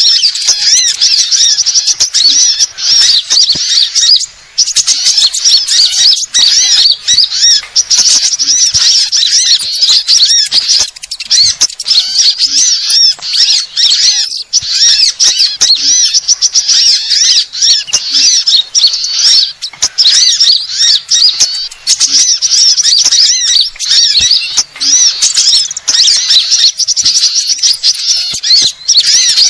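Bird-lure recording of many small songbirds calling at once: a dense, nonstop chatter of high, quick chirps and trills overlapping without a break, the noisy mixed lure sound played to draw small birds in.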